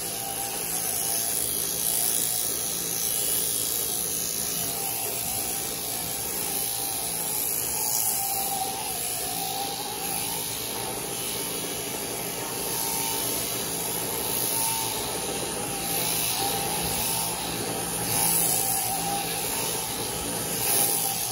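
Electric sheep-shearing handpiece running steadily as its cutter works through a ram's fleece.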